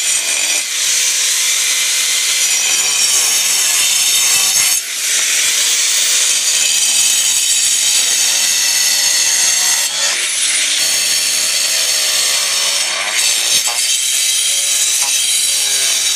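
Handheld angle grinder cutting through a piece of natural stone veneer: a loud, continuous cutting noise with a high whine, dipping briefly three times.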